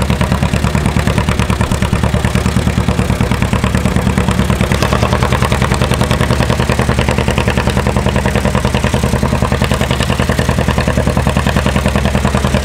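Engine of a green John Deere-style vintage farm tractor working under heavy load as it drags a tractor-pull weight-transfer sled slowly down the track. The engine runs steadily with a fast, even exhaust beat.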